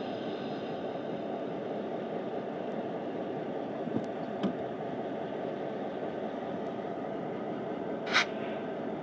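Diesel freight locomotives running steadily with a low engine sound. Two small knocks come about four seconds in, and a short, sharp burst of noise near the end.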